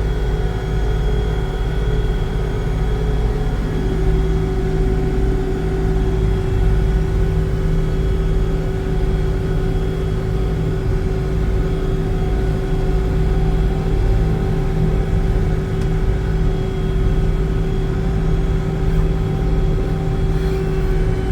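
A 1980-era farm harvesting machine running steadily under load: a deep engine rumble with a constant drone and whine over it.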